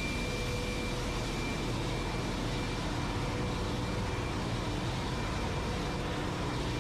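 Ship's engine-room machinery running steadily: a dense, unbroken roar with a few faint steady whines on top.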